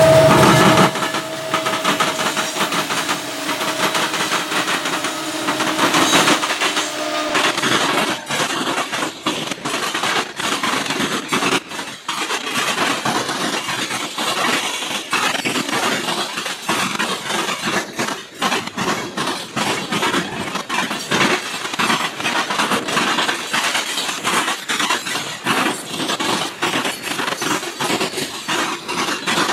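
A freight train's lead diesel locomotives pass in the first second. Then a long string of hopper, coil and tank cars rolls by close up, its wheels clicking steadily over the rail joints.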